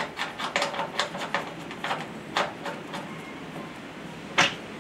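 Light clicking and tapping as the brass gas fitting of a TIG torch hose is turned by hand onto the welder's threaded gas outlet, many small clicks in the first few seconds, then one sharper knock near the end.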